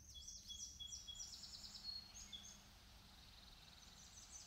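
Faint woodland birdsong: a quick series of high, rising-and-falling chirps, then a short faint trill near the end.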